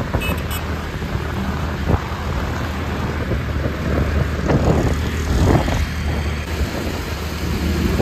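Motorbike being ridden: a steady low engine drone with road and traffic noise.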